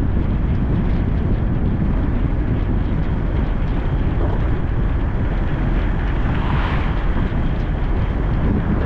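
Car driving on city streets: a steady low rumble of engine, tyre and wind noise, with a brief swell of hiss about two-thirds of the way through.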